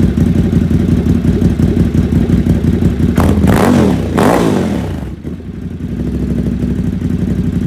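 2017 Ducati Supersport S's 937 cc L-twin idling through Competition Werkes slip-on exhausts. A quick throttle blip about three seconds in revs it up, and the note falls back to a steady idle by about five seconds.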